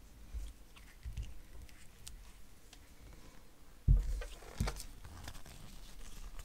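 A powder-coated brake caliper handled in gloved hands on a workbench: soft rubbing and small knocks, with a sharp thump about four seconds in and a second one just after as the caliper is moved and turned over.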